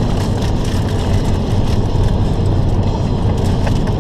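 Steady road and engine noise inside a moving car's cabin at highway speed, a constant low rumble.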